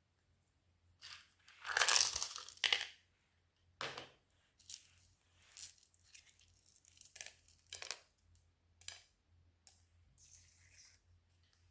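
Slime being worked by hand: a long crackling squish about two seconds in, then a run of short, sharp crackles and pops.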